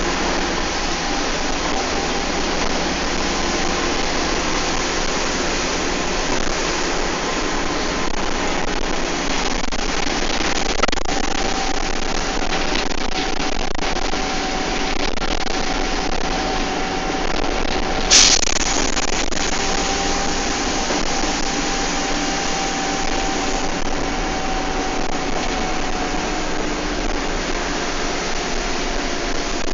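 A bus running at speed, heard from on board: steady engine and road noise with a whine that holds one pitch and sags slightly at times. About 18 seconds in there is a single sharp bang or knock.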